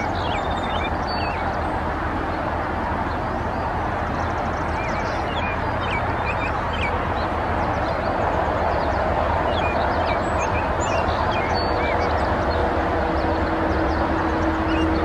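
Outdoor field ambience: many short bird chirps and calls over a steady rushing background noise, with a low steady hum coming in about twelve seconds in.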